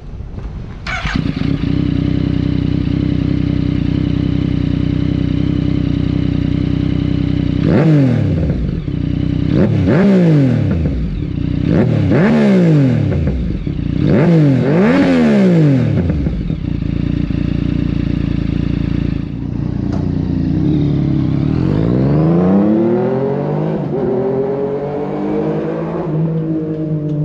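Yamaha MT-09's 847cc crossplane inline-three engine through an Ixil Hyperflow straight-pipe full exhaust. It starts about a second in and idles steadily. Then come four or five quick throttle blips, each rising and falling in pitch, and near the end one slower, longer rev that climbs and settles back.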